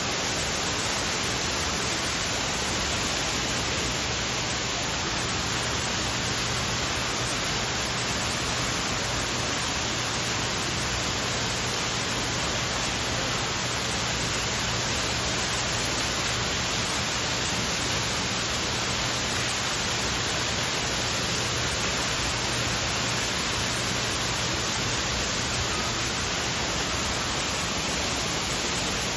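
A steady, even hiss with a faint low hum underneath. It stays unchanged throughout, with no distinct events.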